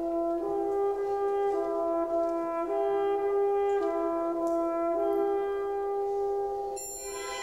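Solo French horn in an orchestra playing a slow line that rocks back and forth between two notes, each held about a second. Near the end other orchestral instruments enter with a brighter sound.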